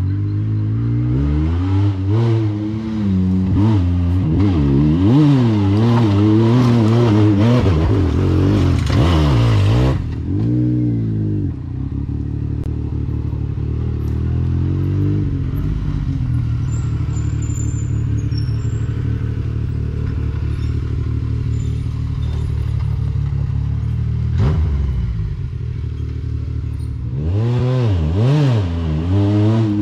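Side-by-side UTV engine revving up and down in quick swells for about the first ten seconds as it works over rough ground, then running at a steady low speed, then revving in swells again near the end.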